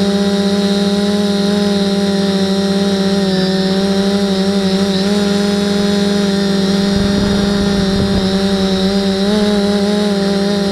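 Small camera drone's electric motors and propellers running in flight: a steady hum made of several pitches that waver slightly as it moves. A brief low rumble comes in about seven seconds in.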